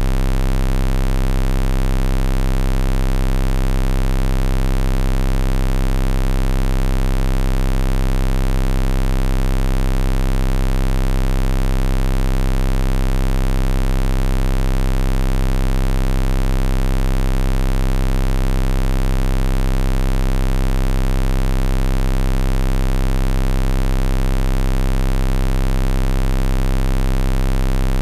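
Loud, unchanging electronic buzz from a vocoder sound-effect edit: a steady low drone with a stack of even overtones and a hiss above it, never varying in pitch or level.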